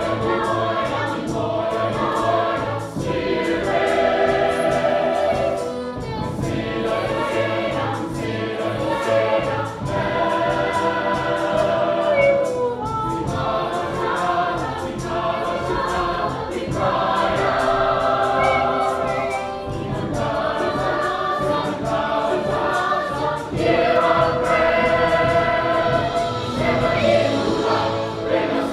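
Opera chorus singing together, in phrases a few seconds long.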